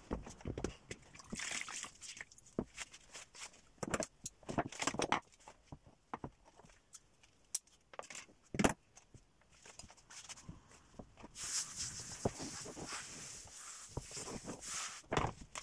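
Hand-handling noises from felt-hat blocking: scattered knocks, taps and rustles as a felt hat body and wooden hat block are worked by hand. About eleven seconds in there is a longer stretch of cloth rustling, ending in a sharp knock.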